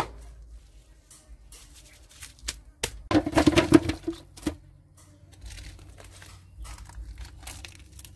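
A last cleaver chop through lemongrass on a wooden cutting board, then scattered light knocks and about a second of crinkling, rustling handling noise as the chopped pieces are moved.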